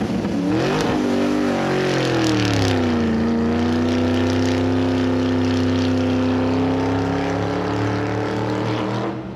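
A steady engine-like drone, as for the toy tractor's engine. It wavers in pitch at first, falls about three seconds in and then holds one pitch, stopping suddenly near the end.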